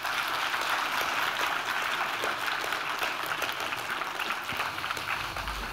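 Audience applauding, a steady dense patter of many hands clapping. The low beat of music comes in right at the end.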